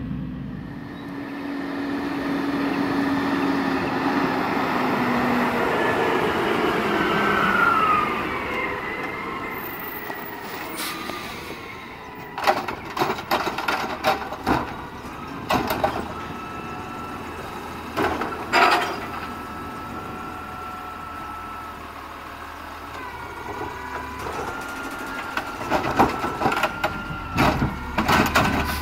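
Garbage truck working with engine and hydraulics running and a whine that slides in pitch. From a little before halfway there are clusters of sharp metallic bangs, as a trash cart is banged and shaken out into the hopper, while a steady hydraulic whine holds underneath.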